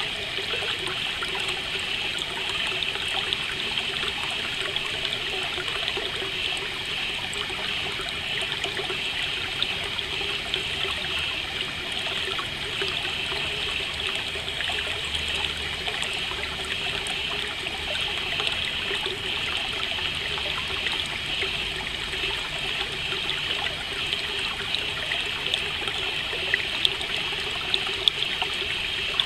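Water running steadily in a trickling stream, an even, unbroken flow.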